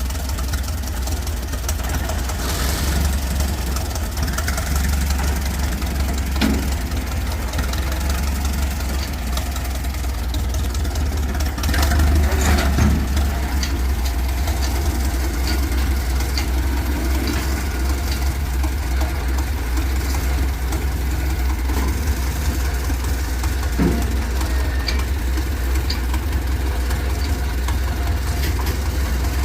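An engine idling steadily, getting a little louder for a moment about twelve seconds in.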